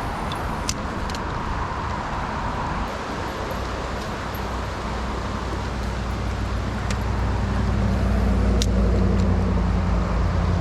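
Steady rushing of flowing creek water, with a low rumble that grows louder in the second half and a few short clicks.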